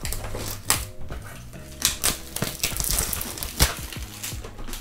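Cellophane wrapping being picked at and torn off a cardboard hockey card box, with the box handled: a steady run of crackles and clicks, with a sharper snap about three and a half seconds in.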